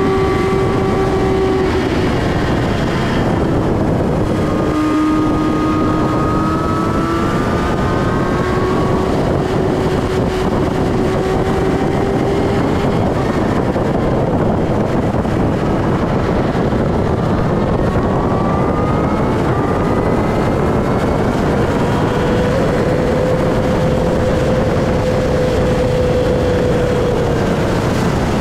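Motorcycle engine running at cruising speed under heavy wind rush on the microphone, its tone dipping and rising slowly as the speed changes and highest about three quarters of the way through.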